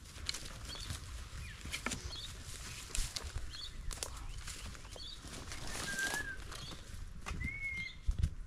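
Footsteps crunching through dry grass and twigs, with a bird repeating a short high chirp about once a second and giving two longer whistled notes about six and seven and a half seconds in.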